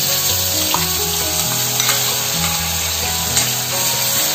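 Ground onion paste sizzling as it fries in hot oil in a metal kadai, stirred with a steel spoon. It has just gone into the oil and is being sautéed until its raw smell is gone.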